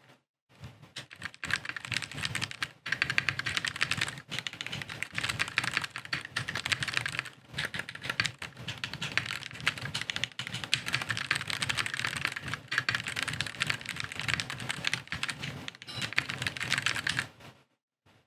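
Fast typing on a custom-built Wooting keyboard: a dense, continuous run of key clacks with a few short pauses, stopping shortly before the end.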